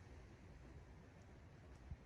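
Faint seashore ambience: a low, steady rumble of wind and distant surf, with one short bump near the end.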